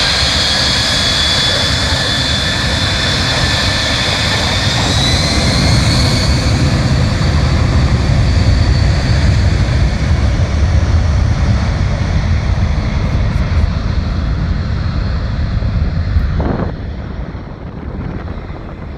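Boeing C-17 Globemaster III's turbofan jet engines running, a high whine over a deep rumble. The whine rises slightly about five seconds in and the rumble swells. The sound falls off suddenly near the end.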